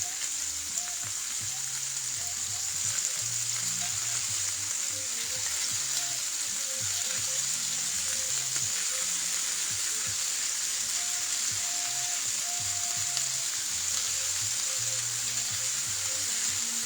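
Beef roast and onion sizzling steadily in a hot skillet as the roast sears.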